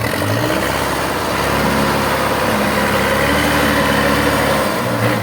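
Case 580 Super L backhoe loader's diesel engine running loud and steady at high throttle.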